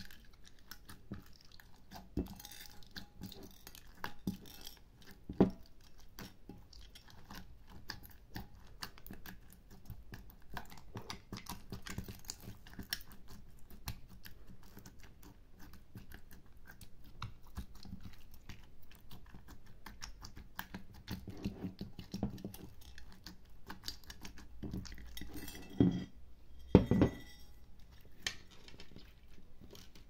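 Sticky, squelching crackle of glitter slime studded with plastic beads and charms being pressed and kneaded by hand in a glass dish. There is a louder knock about five seconds in and two louder slaps near the end.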